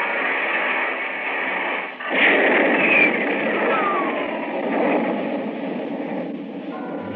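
Radio-drama sound effect of a rocket in flight: a dense rushing noise that dips and swells again about two seconds in, with a whistle sliding down in pitch soon after.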